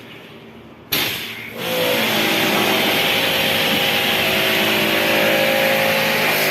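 A machine starts suddenly about a second in and then runs steadily and loudly, a hiss with a steady hum.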